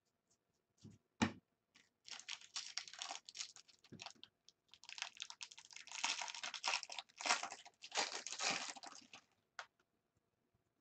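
A baseball card pack's wrapper being torn open and crinkled by hand, in two long stretches of rustling and tearing, with a few small handling clicks before them.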